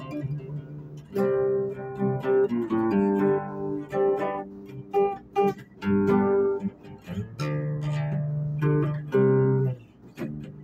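Guitar music: chords strummed and notes plucked, in short phrases with brief pauses between them.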